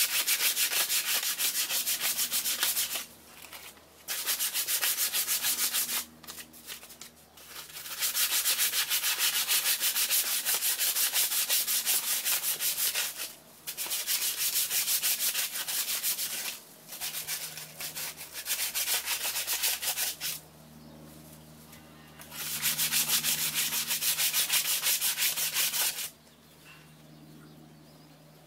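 Hand sanding on a small engine pump's cylinder head area: fast back-and-forth rubbing strokes of an abrasive sheet on metal, in runs of a few seconds with short pauses, stopping near the end.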